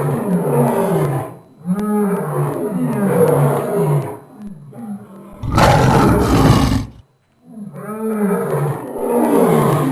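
Lion roaring: two bouts of short grunting roars repeated in quick succession, with a loud, noisy, deep rumbling burst between them a little past the middle.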